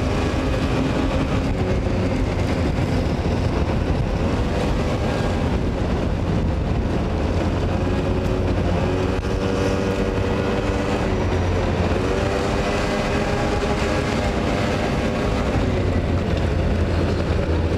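Motor scooter's small engine running under way, its pitch rising and falling as the throttle changes, over steady road and wind noise.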